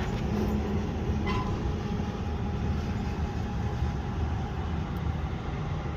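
Steady low machinery rumble, with a faint click about a second in.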